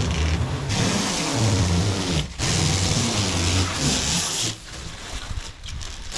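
Protective plastic film being ripped and peeled off the camper's sheet-metal wall panels in long pulls: a loud tearing hiss that starts about a second in, breaks off briefly near two and a half seconds, and fades out after four and a half seconds.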